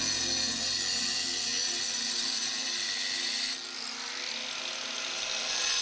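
Electric angle grinder with a masonry blade cutting through pool plaster, a harsh high-pitched grinding. About three and a half seconds in it gets quieter as the disc comes off the wall, then it builds again near the end.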